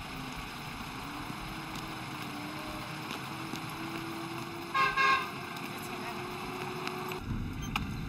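A vehicle horn toots twice in quick succession about five seconds in, over steady outdoor road noise.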